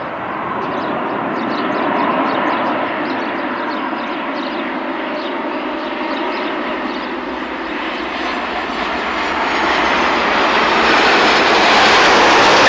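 Aircraft engines running steadily at an airport, growing louder over the last few seconds, with a faint high whine about two thirds of the way in.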